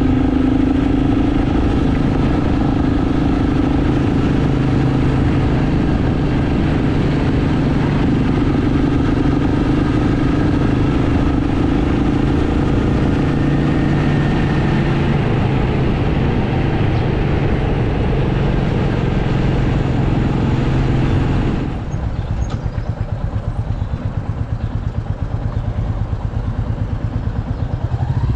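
Royal Enfield Meteor 350's single-cylinder engine running at steady road speed with wind rush over the microphone. About 22 s in, the throttle closes: the wind drops away and the engine settles to a slow, even beat as the bike slows.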